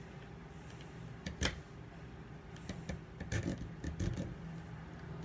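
Scattered small clicks and taps of a plastic cosmetics primer container and its packaging being handled while someone struggles to get it open, over a low steady hum.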